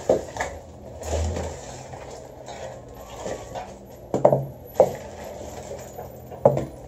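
A crayon scraping back and forth on notebook paper as a yellow area is coloured in, with several short knocks or bumps. The loudest knocks come just after four seconds, near five seconds and near the end.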